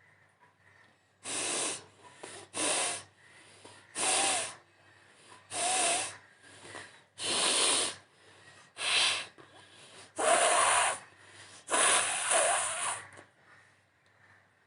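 Repeated hard nose blowing: eight forceful blasts of air through the nose, each under a second or so, coming about every one and a half seconds. A few carry a short wavering tone.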